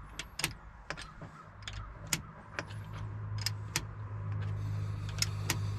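Sharp metallic clicks at irregular intervals, about two a second, from hand tools tightening the bolt on the gear shift assembly. A steady low hum comes in about a second and a half in.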